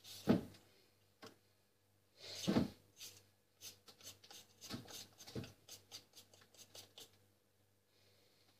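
A carrot being peeled with a hand blade: scraping strokes along the carrot, two longer ones near the start and a run of quicker, shorter strokes from the middle on.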